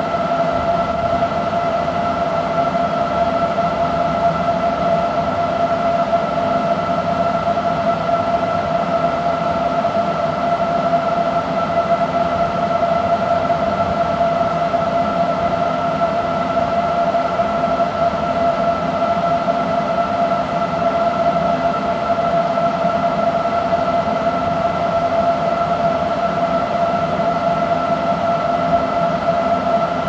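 Electric-vehicle quick charger running while charging a car: a steady electrical whine in two pitches, one an octave above the other, over a constant hiss and low hum.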